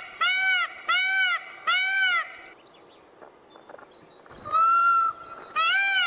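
Indian peacock calling a rapid series of loud, short calls, about one every two-thirds of a second. After a pause of about two seconds comes one longer, flatter call, and the series starts again near the end.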